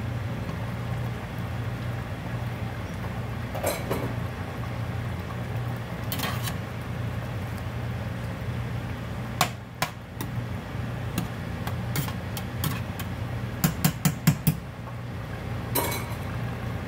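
Metal spoon knocking and scraping against a stainless-steel pot while stirring a stew, with scattered clinks and a quick run of about five taps a few seconds before the end, over a steady low hum.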